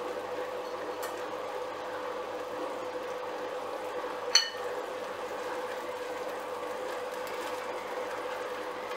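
A steady mechanical hum with a constant mid-pitched tone, and a single sharp clink that rings briefly about four and a half seconds in.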